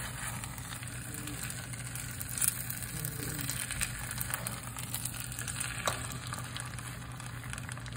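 Fried rice sizzling in a hot wok, a steady crackling hiss, with a couple of sharp taps and scrapes from a spatula stirring it.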